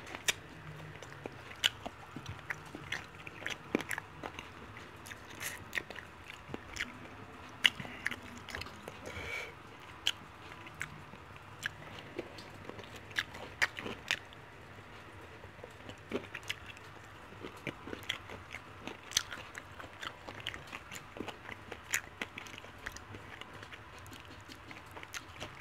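A person biting and chewing breaded fried chicken wings, pulling meat off the bone, with many short, irregular clicks and smacks of mouth and teeth.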